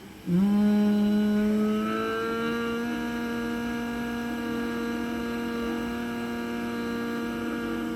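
One long, steady nasal hum on a single exhaled breath: the humming-bee breath of bhramari pranayama, made with the ears closed. The pitch rises slightly at the start, then holds.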